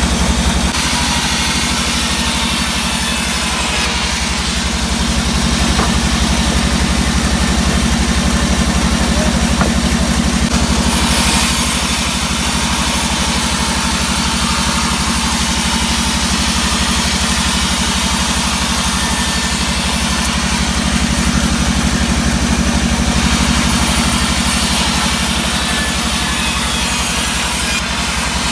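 Sawmill machinery running steadily: a loud, even engine drone with a fast pulse, and stretches of louder high hiss that come and go.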